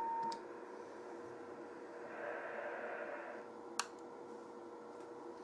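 Faint receiver audio from a Yaesu FT290R 2 m radio: a steady CW beat tone from the signal generator's test carrier cuts off just after the start. It leaves low hiss and a faint steady lower tone, a soft swell of noise about two seconds in, and a single sharp click near four seconds.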